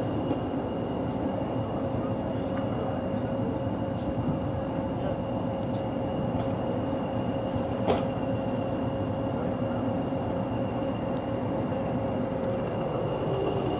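Class 20 diesel locomotive's English Electric eight-cylinder engine idling steadily with the train stood in the platform, a constant hum carrying a steady whistle. A single sharp knock just past halfway through.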